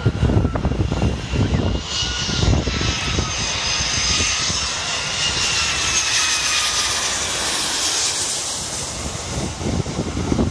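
Boeing 757 jet airliner passing low overhead on final approach, its engines whining and rushing. The whine drops slowly in pitch as the jet goes by, and the noise is loudest about halfway through. Wind buffets the microphone near the start and end.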